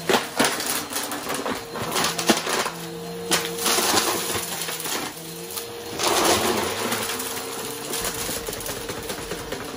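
Bissell upright vacuum with a TurboBrush head running over a pile of lint and small hard beads, the beads clattering and rattling up into the vacuum as quick clicks over the motor's steady hum. The rattling comes in louder bursts as the head is pushed into the pile, around three to four seconds in and again about six seconds in.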